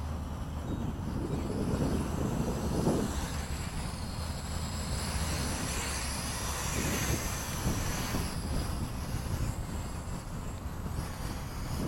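Electric motors and propellers of a NIHUI U807 RC plane, fitted with MMW motors, whining as it makes a low pass, the pitch bending as it goes by about six seconds in. Wind rumbles on the microphone throughout.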